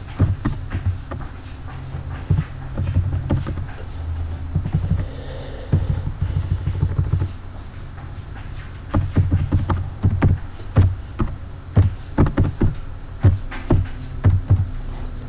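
Computer keyboard being typed on: slow, irregular keystrokes in clusters, each a sharp click with a dull thump.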